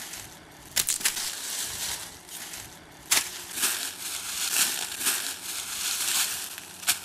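Dry leaves crunching and rustling underfoot on a forest floor, with a few sharp snaps of twigs or sticks.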